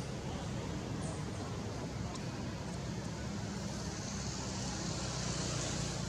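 Steady outdoor background noise: a low rumble with a hiss over it at an even level, and a few faint ticks.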